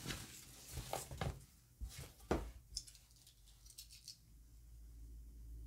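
Short knocks and light scrapes of a steel ruler and a sheet of cardboard being set down and lined up on a wooden worktable, the loudest knock a little over two seconds in. After that it is quieter, with a faint low hum.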